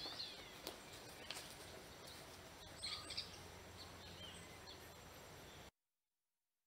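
Faint outdoor ambience with a few short, high bird chirps now and then; the sound cuts off to dead silence near the end.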